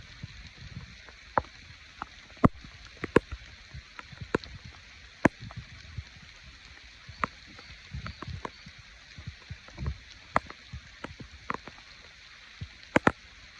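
Wood campfire crackling: sharp, irregular pops, roughly one every second, over a steady faint hiss.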